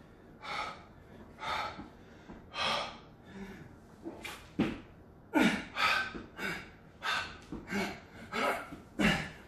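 A man's heavy breathing, short hard puffs in and out: the panting of hard exertion in a burpee workout. About one breath a second at first, quickening to about two a second from about halfway through.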